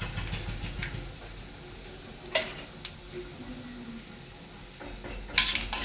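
Mustard seeds spluttering in hot oil in a pan, with a steady sizzle as the tempering is stirred. A few sharp clicks come about two and a half seconds in and again near the end.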